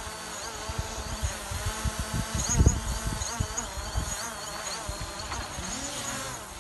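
DJI Mavic Pro quadcopter hovering close by, its propellers buzzing with a pitch that wavers up and down as it holds position. Low buffeting from wind on the microphone comes and goes, heaviest about two and a half seconds in.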